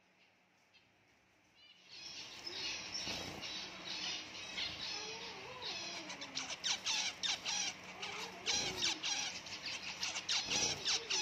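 Zebra finches calling: after about two seconds of near silence, several birds start a dense run of short, quickly repeated calls that carries on to the end.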